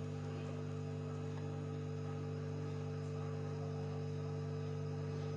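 Steady low electrical hum with several fixed tones, unchanging throughout.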